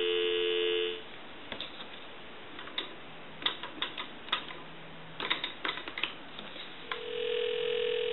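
Telephone dial tone that stops about a second in as dialling begins, then a string of short irregular clicks as a number is dialled on the desk telephone's push-button dial. Near the end a steady ringback tone starts on the line.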